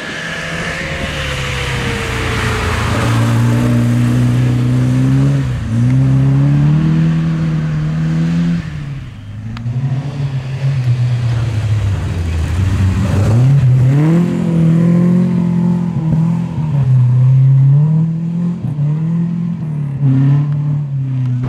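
Two Opel rally cars passing one after the other, engines revving hard. The pitch climbs and drops sharply with each gear change, with a short lull between the cars about nine seconds in. The second car is a blue Opel Kadett C.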